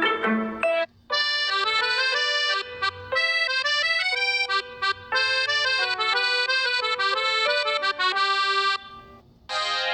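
Huawei Nova 7i ringtones playing one after another. One tune cuts off about a second in. A new melody of quick, bright notes follows and runs until near the end. Then the next ringtone starts just before the end.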